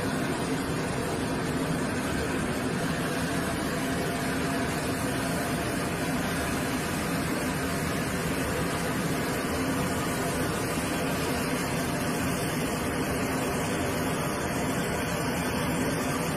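Steady drone of running engines and machinery with a broad hiss, unchanging throughout, as from aircraft and ground equipment running on an airfield flight line.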